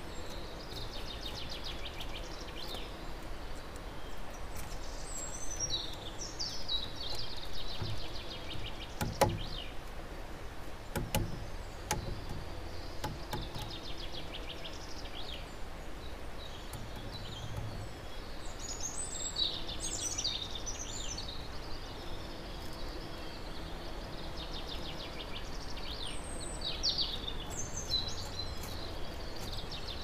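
Small wild birds chirping and trilling on and off over a steady outdoor background hiss, with a few sharp knocks around the middle.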